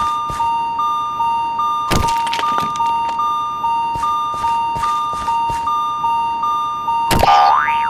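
Japanese railroad-crossing warning bell ringing "kan-kan", two alternating pitches struck about two and a half times a second. A sharp hit about two seconds in and a quick rising sweep near the end are heard over it.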